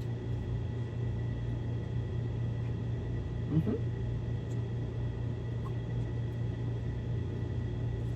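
Steady low electrical hum of room background, with a faint steady high whine. About halfway through, a brief rising voice sound, like a short 'mm'.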